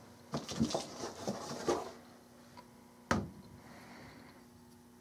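Handling noise as a 12 V sealed lead-acid battery is lifted out of its slot in a UPS battery cartridge's aluminum tray: a run of small clicks and scrapes in the first two seconds, then a single sharp knock about three seconds in.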